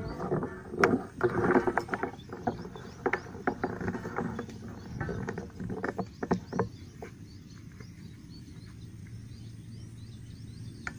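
Rustling and knocking from an air rifle being handled and aimed, a string of short knocks for the first seven seconds or so, after which it settles into a steady faint outdoor hum. Faint high chirps run through it.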